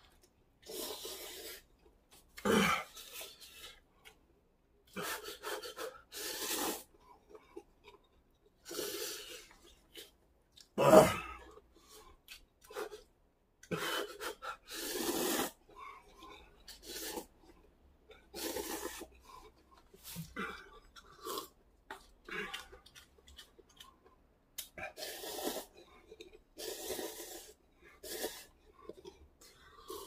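Cup instant noodles slurped hard and fast in short, noisy pulls, again and again with brief pauses between, as in a speed-eating challenge; one much louder burst about eleven seconds in.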